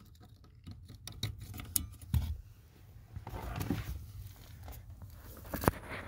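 Scattered small plastic clicks and rustling from hands handling the brake pedal switch and its wiring connector, with a sharper click near the end.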